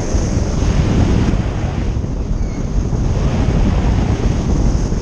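Wind buffeting a camera's microphone during a tandem parachute descent under an open canopy: a loud, steady rushing noise, heaviest in the low end, swelling and easing slightly.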